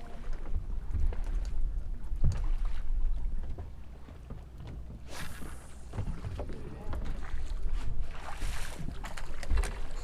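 Wind rumbling on the microphone aboard a small fishing boat at sea, with water rushing and a few brief knocks about five seconds in and again near the end.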